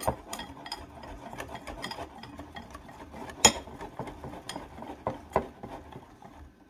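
Wire whisk beating a flour and coconut-milk batter in a bowl: a wet swishing with the wires clicking against the bowl's side a few times a second, one sharper knock about three and a half seconds in. The whisking stops just before the end.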